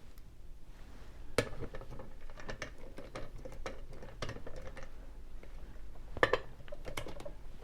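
Small metal clinks and clicks of a brass padlock and keys being handled, with two sharper clinks, about a second and a half in and about six seconds in.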